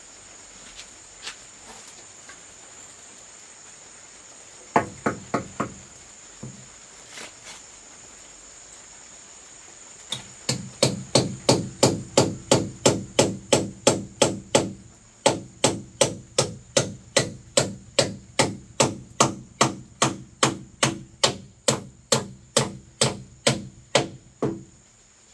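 A hammer strikes repeatedly: four quick blows about five seconds in, then from about ten seconds on a long, even run at about three blows a second. Insects trill steadily in the background.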